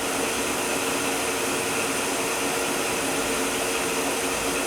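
Haas HS-1 horizontal machining center running with its spindle turning slowly at 500 RPM in low gear: a steady whirring hum with a few constant tones.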